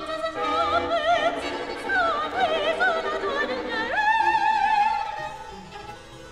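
Soprano singing with a wide vibrato over string accompaniment, sliding up about four seconds in to a long held high note that fades near the end.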